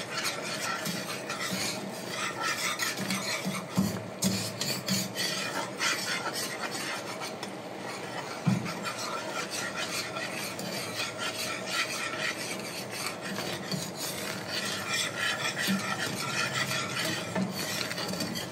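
A whisk stirring and scraping around a pan of sausage gravy, with quick, continuous strokes as milk is worked in and the gravy thickens. There are a couple of brief knocks, about four and eight and a half seconds in.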